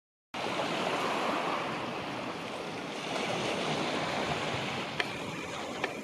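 Sea waves washing onto a rocky shore: a steady rushing surf noise, starting a moment in, with two short sharp clicks near the end.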